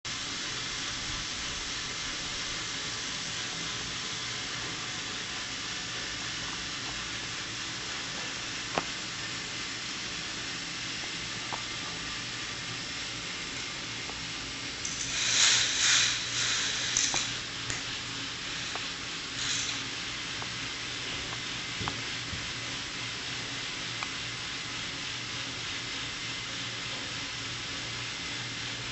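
Micro K'nex roller coaster running: the small electric lift motor and chain make a steady whirring hiss with a low hum and the odd click. About fifteen seconds in, a louder two-second rush of noise, and a shorter one a few seconds later, comes from the plastic train running down the track.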